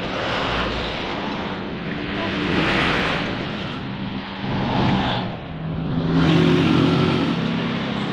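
Motor vehicle engine noise that swells and fades about three times, with a steady low hum under it.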